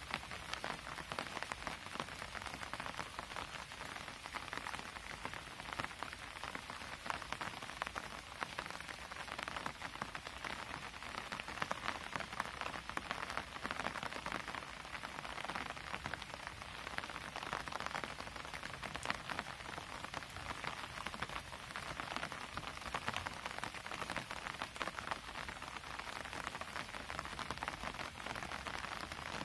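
Steady rain falling: an even hiss of many small drops pattering, with no let-up.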